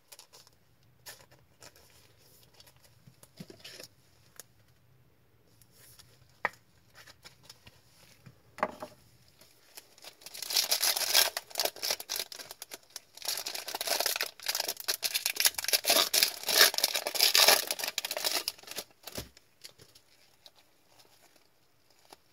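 Foil wrapper of an Upper Deck hockey card pack crinkling and tearing as it is ripped open by hand, in two loud stretches of a few seconds each. Scattered light clicks and rustles of card handling come before and after.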